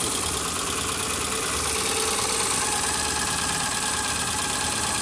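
Tata Nano's 624 cc two-cylinder petrol engine idling steadily on fresh fully synthetic 10W-40 oil. The owner says it now runs quieter, with less vibration.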